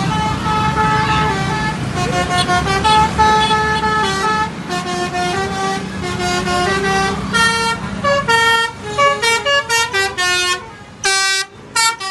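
Multi-tone telolet bus horn playing a quick melody of changing notes over a running bus engine. After about eight seconds the engine sound drops away and the horn plays in short, separate blasts.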